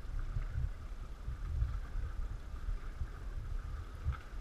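Water sloshing and dripping around an inflatable sea canoe as it is paddled, over a low, uneven rumble.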